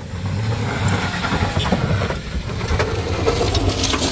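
Small MPV's engine working under load as it climbs a steep dirt-and-gravel slope, with tyres crunching over loose stones and grit. It grows louder about half a second in as the car draws close.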